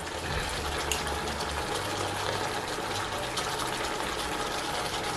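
Liquid hissing and bubbling in a hot pot of soup base, a steady crackling hiss.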